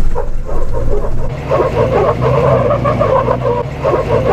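Off-road vehicle engines running slowly under load. About a second and a half in, a rough, wavering squeal starts and stays on top of them.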